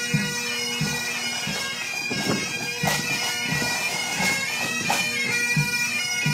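Highland bagpipes playing a tune over their steady drone, with regular low thumps beneath.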